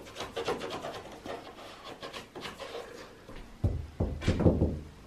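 Old wallpaper border being scraped and picked at by hand where the wall meets the ceiling: a run of short scratching rubs, then a few louder dull thumps near the end.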